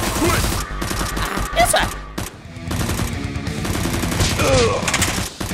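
Rapid automatic-gunfire sound effects in bursts, with a short lull about two seconds in, laid over background music.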